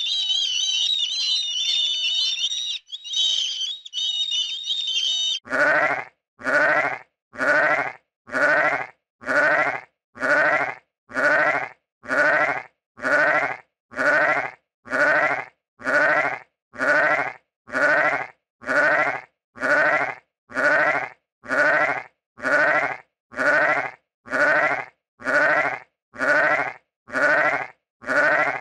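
High-pitched chirping squeaks for several seconds, then a sheep's bleat repeated over and over: the same short bleat about every three-quarters of a second, identical each time like a loop.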